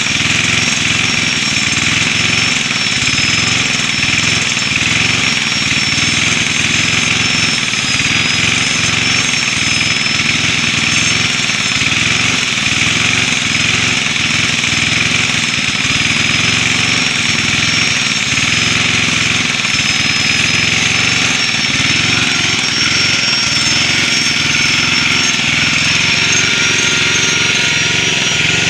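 Angle grinder running with a steady high whine, grinding the cutters of a chainsaw chain in a fast, uneven rhythm of strokes.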